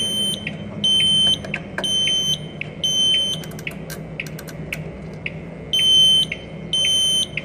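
Conventional fire alarm system beeping: a high electronic tone pulses about once a second, pausing for a couple of seconds midway. Faint regular ticking runs underneath.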